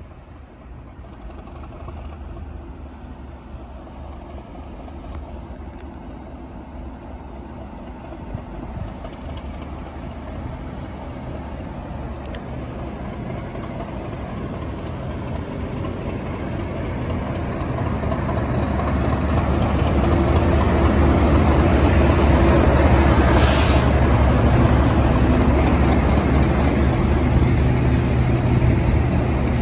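Class 37 diesel locomotive running at slow speed, its engine note building steadily as it approaches and loudest as it passes, with steady low engine tones while it hauls a rake of dead Class 365 electric units. A brief hiss about two-thirds of the way through.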